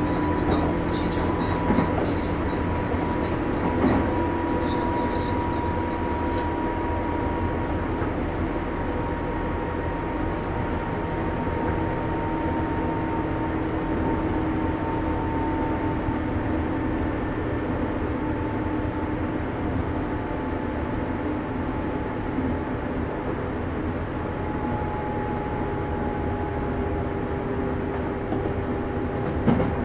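JR West 201 series electric train running, heard from inside the car: a steady rumble of wheels on rail with a motor whine that slowly falls in pitch as the train's speed drops.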